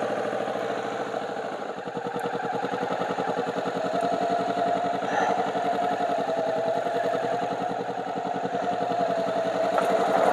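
Motorcycle engine running with a steady, pulsing note as the bike pulls away and rides slowly along.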